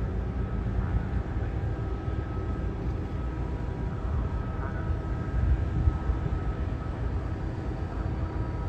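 Large diesel engine running steadily: a low rumble with a faint held whine above it.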